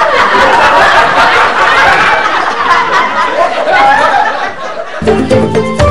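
Sitcom laugh track: a crowd of people laughing for about five seconds after a punchline. Music starts near the end.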